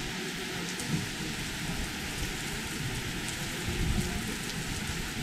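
Heavy rain pouring down steadily, with a low rumble of thunder swelling briefly near the end.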